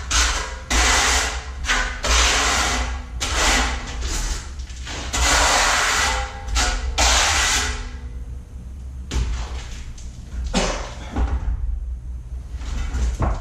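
Steel trowel scraping thinset mortar across the back of a tile, back-buttering it in about ten quick strokes, then a few lighter scrapes and knocks near the end. A steady low hum runs underneath.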